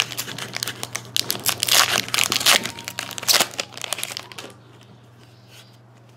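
Foil wrapper of a 2012-13 Upper Deck Artifacts hockey card pack being torn open and crinkled by hand, a dense crackling for about four and a half seconds. Then it falls quiet, leaving a low steady hum.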